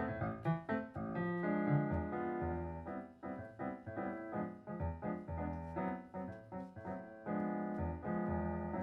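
Piano playing a rhythmic chacarera passage in a Brazilian jazz group, a run of struck chords and notes over low bass notes.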